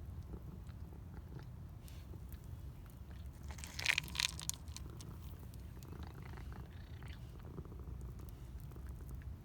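Domestic cat purring steadily, with a brief louder sound in two quick pulses about four seconds in.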